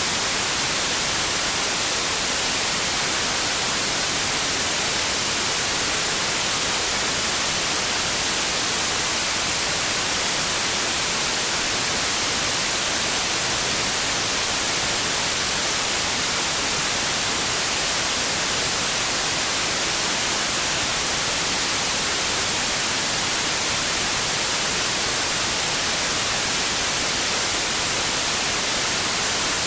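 Steady white noise: an even, unchanging hiss, brightest in the high frequencies, with no breaks or events.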